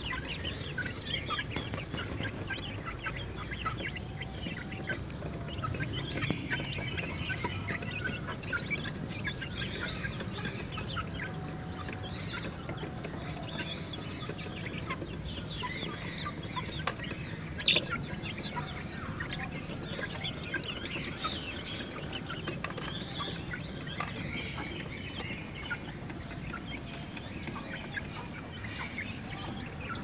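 A small flock of hens clucking and chirping continuously while pecking at grain. A single sharp click about halfway through is the loudest moment.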